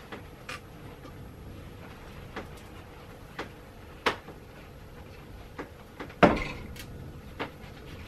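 Sheet-steel sill panel being bent by hand around a steel tube former: scattered clicks and knocks as the metal shifts against the tube and locking clamps, the loudest a heavier knock with a short ring about six seconds in.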